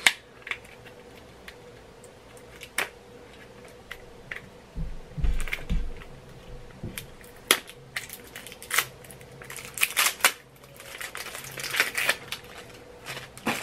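Hands unwrapping a lip product's packaging: a run of sharp clicks and crackles, densest about ten to twelve seconds in, with a few dull low thumps around five seconds in.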